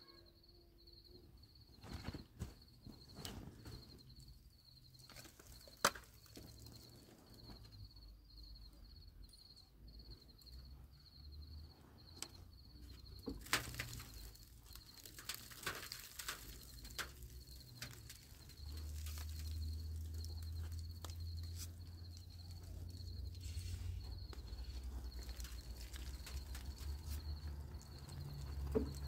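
A heavy woollen blanket being shaken, handled and spread out on a wooden platform, with rustling and flapping, scattered knocks and steps on the boards. A faint high pulsing tone runs underneath, and a low rumble comes in about two-thirds of the way through.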